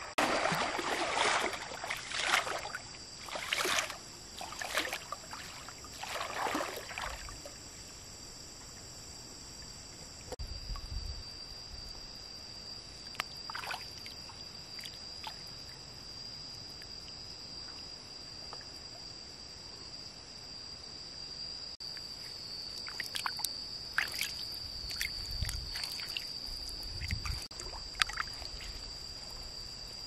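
Water splashing and sloshing in irregular bursts, busiest in the first several seconds and again near the end, with a calmer stretch between. Under it runs a steady, high-pitched insect drone.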